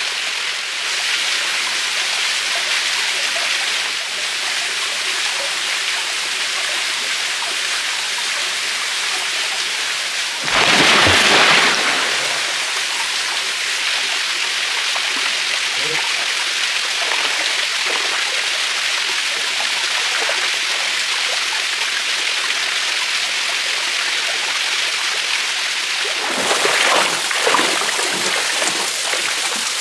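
Small waterfall splashing steadily into a rock pool, with a louder rush of splashing a third of the way in. Near the end, choppy splashing of feet wading quickly through shallow water.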